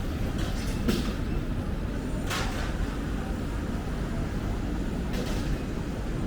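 City street ambience: a steady low rumble of traffic, with a few short sharp noises, the clearest a brief hiss about two and a half seconds in.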